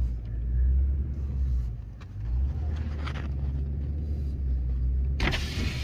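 Pickup truck engine running, a low steady rumble heard from inside the cab.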